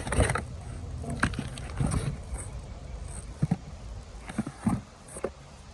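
Cardboard box flaps and plastic-bagged parts being handled and rummaged through: scattered light taps, crinkles and scrapes.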